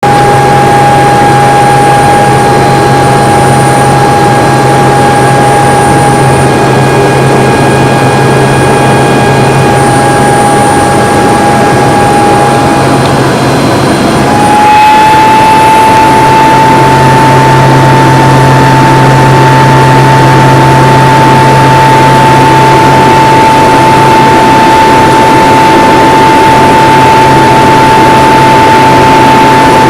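Light aircraft's engine and propeller heard from inside the cockpit in flight: a loud, steady drone with a constant whine whose pitch steps up slightly about halfway through.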